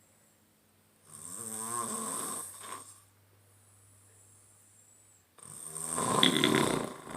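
A man snoring loudly in his sleep: two long snores about four seconds apart, the second one louder.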